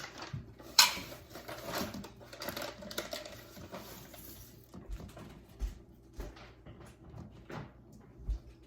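Kitchen handling noises while preparing cookie dough: a sharp click or clack about a second in, then scattered light taps, clicks and rustles, with a few soft low thumps near the end.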